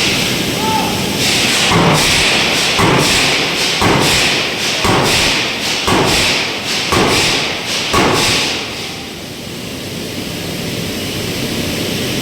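Heavy hammer blows in forging, seven strikes about a second apart that stop about eight seconds in, over a steady roar of shop machinery.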